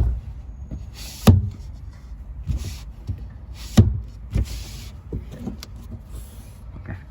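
Sharp knocks and short scraping slides from the sliding rear window glass of a Toyota Tundra being pushed and worked into its channel: two loud knocks about a second and nearly four seconds in, a few lighter ones, and four brief rushes.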